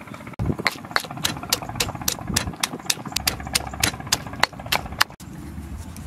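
Stone pestle pounding garlic and red chillies in a stone mortar: a quick run of sharp knocks, about four a second, which stops about five seconds in.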